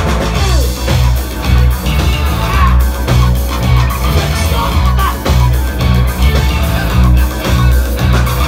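Rock band playing a song: guitar over a pulsing bass line, with drums keeping a steady beat.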